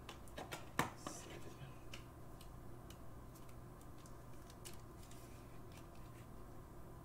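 Trading cards and plastic card holders being handled on a desk: a cluster of small clicks and taps in the first second, then faint scattered ticks.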